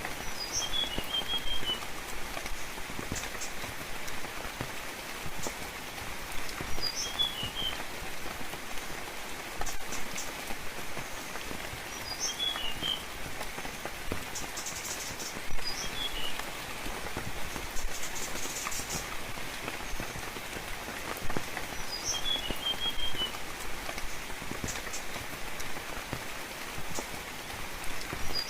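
Steady rainfall with sharp individual drips tapping. A bird repeats the same short call about every five to six seconds: a high note followed by a quick run of lower chirps.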